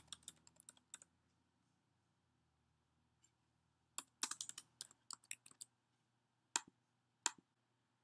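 Typing on a computer keyboard: quick runs of keystrokes, a pause of a few seconds, another run, then two single clicks near the end.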